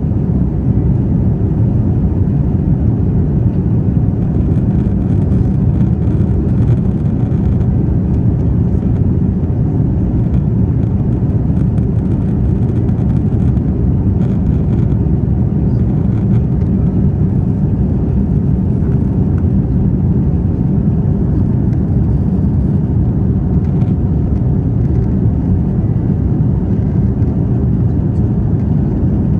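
Steady cabin noise of a jet airliner in flight: engine and airflow noise heard from a window seat, a low, even rumble.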